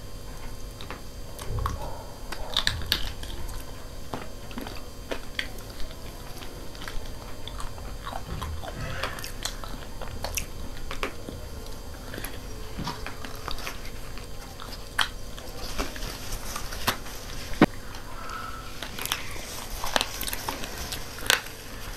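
Close-up eating sounds of two people biting and chewing fried chicken feet, with many small scattered clicks and crunches.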